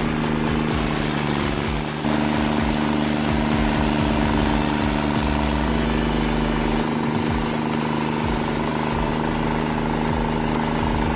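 A machine's engine running steadily under a constant load, its tone shifting slightly about two seconds in and again around six seconds.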